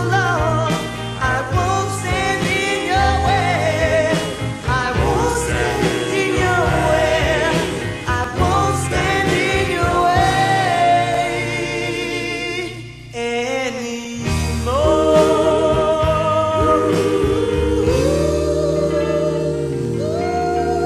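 Doo-wop style ballad sung by a lead voice over close group vocal harmonies. About 13 seconds in the sound briefly drops away; then the voices hold long sustained chords that slide to new notes near the end.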